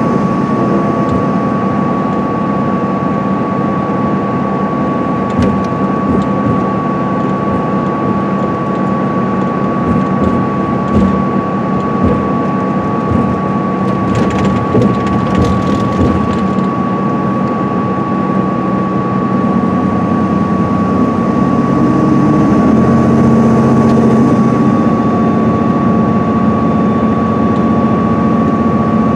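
Interior sound of an MCI D4500CL coach with a Cummins ISM straight-six diesel and Allison automatic transmission cruising at freeway speed: a steady engine drone with road and tyre noise and a constant high whine. The drone grows a little louder about 22 seconds in.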